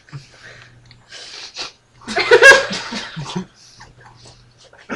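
Breathy sounds, then a loud burst of laughter about two seconds in that lasts about a second and a half.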